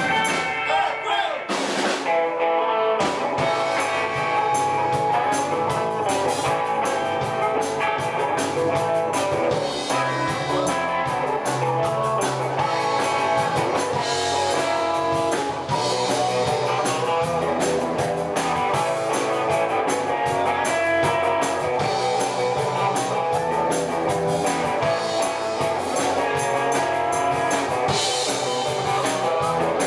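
Live blues band playing an instrumental passage: blues harmonica played through a microphone over electric guitars and a drum kit keeping a steady beat.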